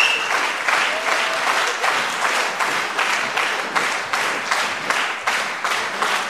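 Theatre audience applauding, clapping together in a steady rhythm of about three to four claps a second.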